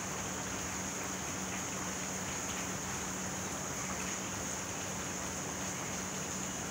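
Steady rain falling, an even hiss with no let-up, with a faint low hum underneath.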